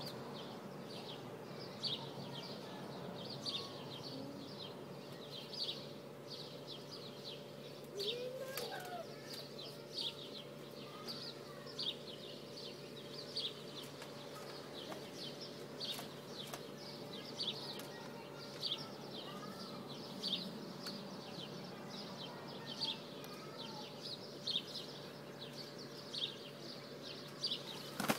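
Small birds chirping, short high chirps repeating every half second or so throughout, over a steady low hum.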